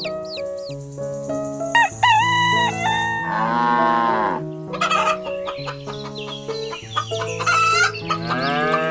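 Rooster crowing twice, about three seconds in and again near the end, each crow preceded by a shorter clucking call, over light background music with steady notes.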